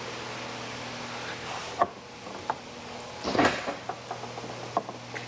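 Steady low hum with a few scattered clicks and knocks, and one louder clatter about three and a half seconds in.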